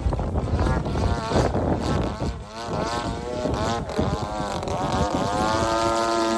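30cc gasoline engine of a 73-inch Extra 300 radio-controlled aerobatic plane in flight, its pitch sliding up and down as it passes and changes throttle, then holding steadier near the end. Wind buffets the microphone underneath.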